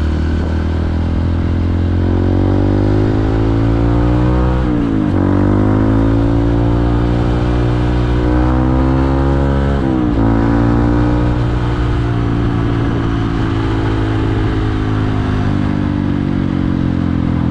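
A motorcycle engine running as the bike is ridden along a road, heard from the rider's seat. Its pitch rises and falls, drops abruptly twice, about five and ten seconds in, and climbs again after each drop.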